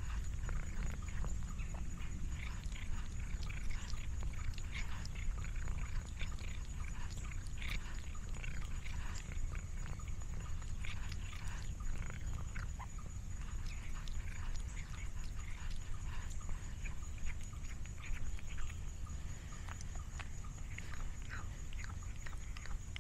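Domestic cat purring close to the microphone: a steady low rumble, with scattered small crackles and clicks over it.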